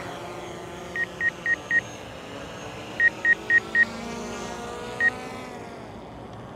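A drone's propellers humming, the pitch shifting slowly as it flies to its start point. Short electronic beeps sound at one high pitch: four quick ones about a second in, four more about three seconds in, and a single one after five seconds.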